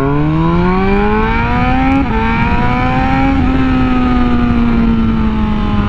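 Superbike engine accelerating hard, its pitch climbing, with two quick upshifts about two seconds and three and a half seconds in, then the revs easing slowly down.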